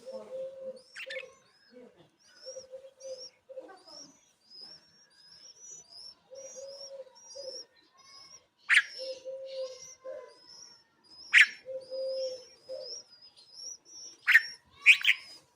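Birds chirping: a long run of short, high chirps, about two or three a second. Under them a dove's low cooing phrases repeat. Several sharp, loud calls or knocks stand out about nine, eleven, fourteen and fifteen seconds in.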